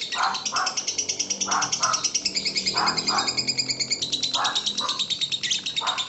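Lovebird ngekek: a long, unbroken, fast chattering trill of high notes, many per second. Under it, a pair of lower notes repeats about every second and a half.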